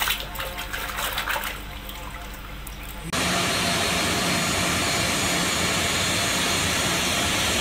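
Hand sloshing and splashing in a tub of muddy water. About three seconds in it switches suddenly to the louder, steady rushing noise of a Boeing 737 airliner's jet engines as it taxis, with a steady hum under the rush.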